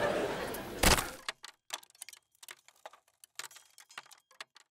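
Audience laughter fading, cut off about a second in by a sharp crack. Then an irregular run of small cracks and clicks, a cracking sound effect, which stops just before the end.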